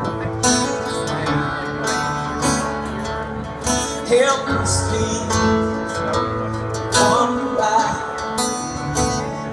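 Live acoustic band music: a strummed acoustic guitar and keyboard, with a man singing.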